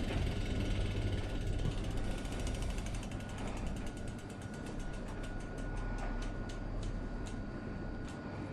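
Bicycle hub ratcheting as a spun wheel coasts down: a rapid run of clicks that steadily slows, spacing out to a few clicks a second.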